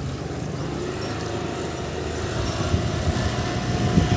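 Motor scooter running while being ridden, a steady engine and road noise with low wind rumble on the microphone; a faint steady whine comes in about halfway through.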